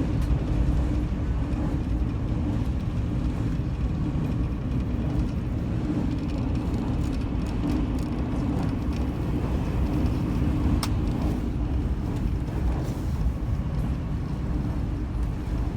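Steady low rumble of a moving vehicle heard from inside, with one sharp click about eleven seconds in.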